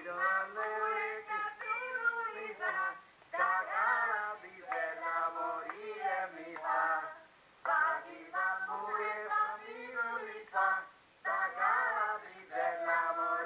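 Female voices singing a Calabrian folk song in dialect, the melody moving in phrases with short breaks between them.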